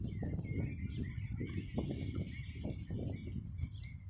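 Small birds chirping over a low, uneven rumble of wind buffeting the microphone; the rumble eases near the end.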